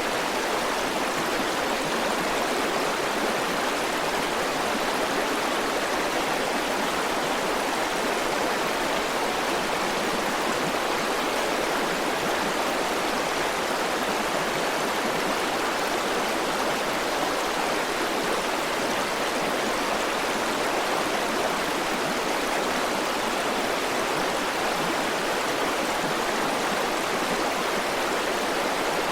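River water flowing steadily: an even, unbroken hiss with little bass.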